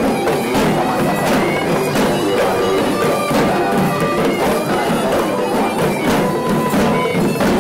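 Sri Lankan procession drumming: a troupe beating double-headed drums in a fast, dense rhythm, with a reed pipe playing a held, wavering melody over it.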